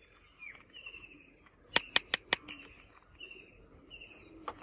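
Small birds chirping over and over, short falling chirps. Four quick sharp clicks about two seconds in and one more near the end, from a plastic toy rifle being handled.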